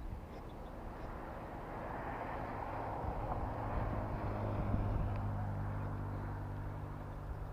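A motor vehicle passing at a distance, its engine hum swelling to a peak about halfway through and then fading.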